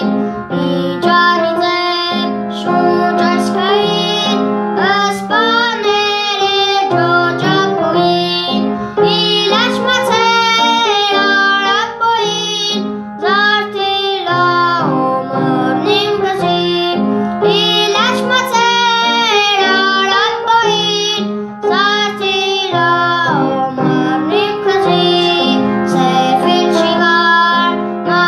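A boy singing a song with sliding, ornamented notes over an instrumental accompaniment.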